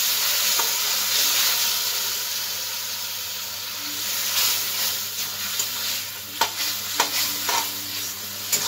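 Banana blossom and spice mixture sizzling in a kadai, a little water just added, while a spatula stirs it. The spatula scrapes and knocks against the pan several times in the second half.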